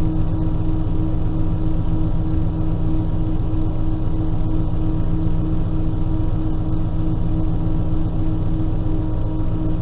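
Diesel engine of an X 73500 railcar idling, heard from inside the driver's cab: a steady, unchanging drone with a constant low hum.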